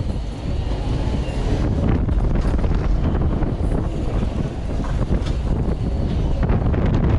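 Wind rushing and buffeting over a rider's camera microphone on an inverting flat ride as it swings through repeated inversions; a steady heavy roar.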